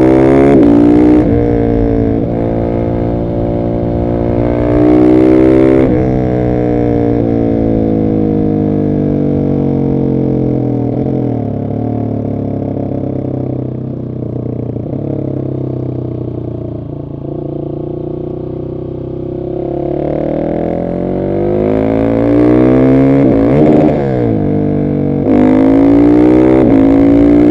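Husqvarna 701 Supermoto's single-cylinder engine through an Arrow exhaust with the catalyst removed, revving hard under heavy throttle. The revs fall away slowly and more quietly for several seconds in the middle of the stretch, then wind up hard again, with a quick break in the revs for a gear change near the end.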